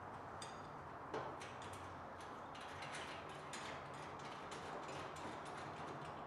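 Faint, irregular light metal ticks and clicks of a nut being threaded by hand onto a bolt through a golf-cart footrest bracket, with one louder knock about a second in.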